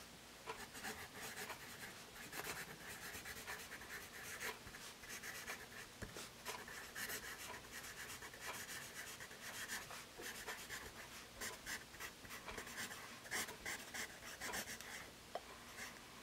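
Paper Mate Mirado Black Warrior #2/HB graphite pencil writing cursive on a paper pad: a continuous run of short, scratchy strokes. The lead is not super smooth on the page.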